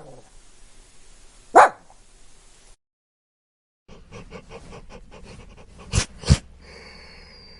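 A dog gives a single deep, chunky bark about a second and a half in. After a short pause comes a dog sniffing rapidly, four or five sniffs a second, with two sharper, louder sniffs near the end.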